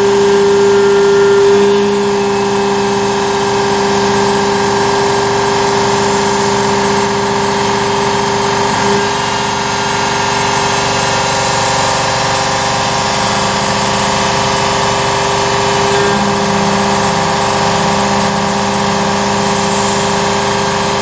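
Carvera Air desktop CNC mill running a slow, shallow milling cut: a steady mechanical hum with several steady tones, the pitch pattern shifting slightly about 9 and 16 seconds in as the cutter's load changes.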